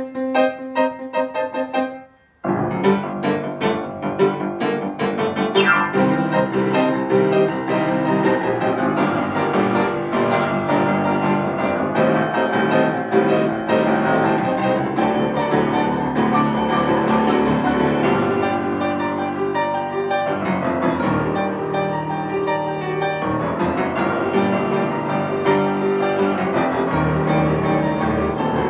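Piano duet: quick repeated notes, a short pause about two seconds in, then dense, full playing with many notes and chords sounding together.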